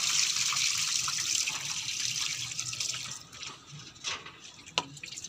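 Water pouring out of a tilted plastic tub of washed wheat grains and splashing onto a concrete floor, stopping about three seconds in. A couple of short knocks follow as the tub is handled.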